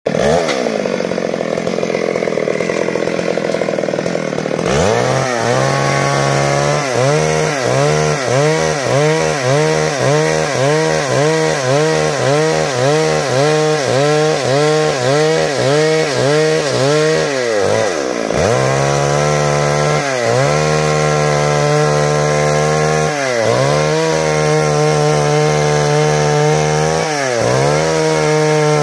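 Stihl MS 382 two-stroke chainsaw running at high revs while cutting wood. Its note dips and recovers in quick, even sags about one and a half times a second for a stretch, then runs steadier with a few deeper dips.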